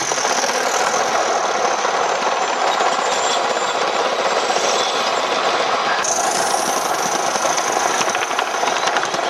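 Gauge 1 live-steam model steam locomotive and its long train of wagons running past on the track: a steady, fast clatter of wheels over the rails mixed with the engine's steam exhaust. The sound changes in tone about six seconds in.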